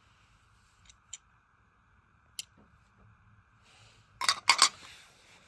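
A few light plastic clicks, then a quick clatter of several sharp knocks a little past four seconds in: a derma roller's plastic handle and drum knocking against its clear plastic storage case.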